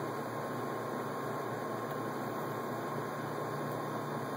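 Steady hiss with a low hum and a faint, thin, unchanging tone: background room and recording noise. No distinct screwdriver clicks stand out.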